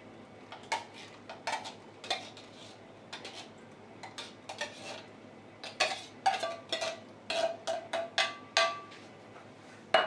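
A metal spoon scraping and knocking against a tin can as crushed pineapple is spooned out of it, a string of separate clicks and knocks. They come thickest in the last few seconds with a short metallic ring, and end with one sharp knock.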